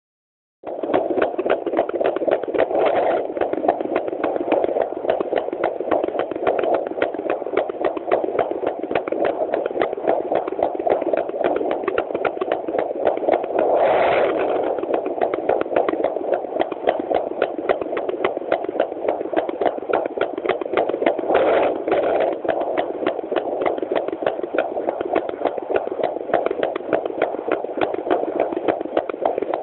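Unborn chihuahua puppy's heartbeat heard through a handheld pocket fetal Doppler's speaker: a fast, steady pulse at about 200 beats a minute, normal for an unborn pup. A few brief louder bursts of noise break in.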